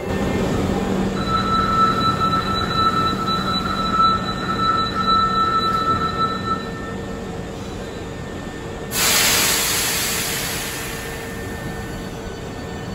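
Hankyu 7300-series train standing at an underground platform: a steady electrical hum with a high whine for the first half. About nine seconds in, a sudden loud hiss of compressed air vents from the train's pneumatics and fades over a couple of seconds.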